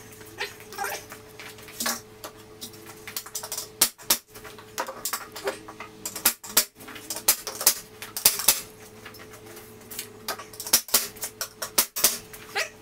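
Irregular sharp clicks and knocks of wood being handled and struck on a workbench frame built from 4x4s and 2x4s, over a faint steady hum.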